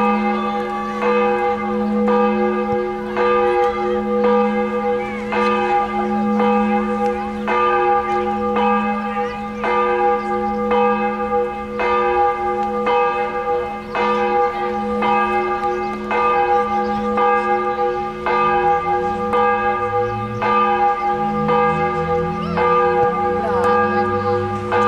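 A large bell ringing, struck about once a second, each stroke ringing on into the next.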